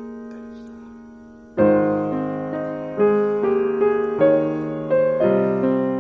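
Background piano music: a held chord fades away, then fresh chords and melody notes are struck about every half second from about a second and a half in.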